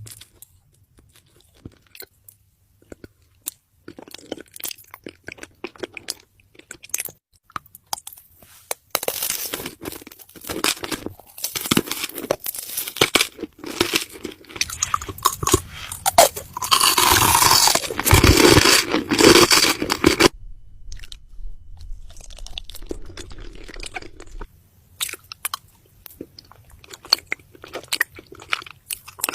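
Close-miked chewing and crunching of food. It starts as scattered small clicks, builds to loud, dense crunching for about ten seconds in the middle, then softens to quieter chewing.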